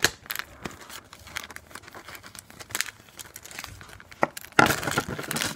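Small clear plastic zip-lock bag crinkling and rustling as it is handled, with irregular crackles and a louder stretch of crinkling near the end.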